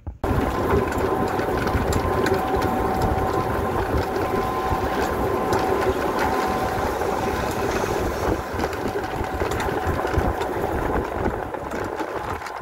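A vehicle running steadily, its motor noise mixed with rumble. It starts abruptly just after the start and holds at an even level, with a faint steady whine in it.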